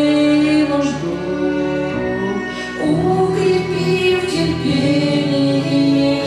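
A woman singing a slow Orthodox spiritual song with instrumental accompaniment, holding long notes.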